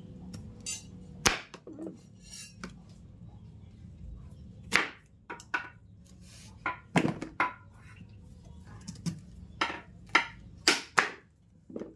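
Kitchen knife cutting peeled cassava on a wooden cutting board, the blade knocking against the board in irregular strokes, about a dozen of them.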